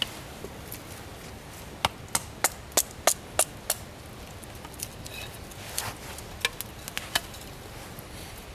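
A wooden baton knocks sharply on a bushcraft knife, driving the blade into a stick: seven blows about three a second, then a few lighter knocks and a short scrape of the blade on wood.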